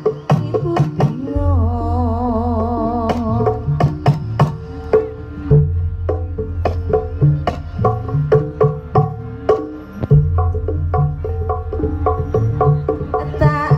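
Jaranan (kuda lumping) accompaniment music: kendang hand drums playing a quick, busy rhythm over deep sustained tones, with a wavering melody line early on.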